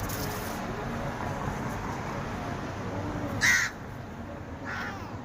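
Two short, harsh animal calls about a second apart, the second fainter.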